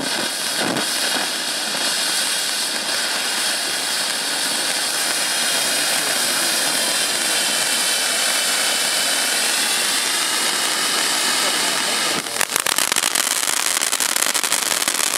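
Cube Fireworks Volcanic Flow cone fountain burning: a steady, loud hiss as it sprays a column of sparks. About twelve seconds in, the hiss turns into a dense, rapid crackle as the fountain throws out crackling sparks.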